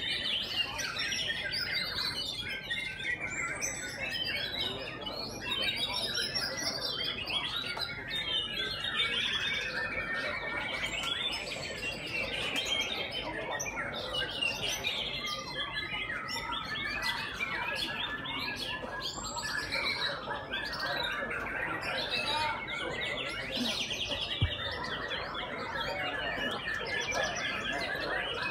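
Many white-rumped shamas singing at once from cages hung close together: a dense, unbroken tangle of overlapping whistles and chirps.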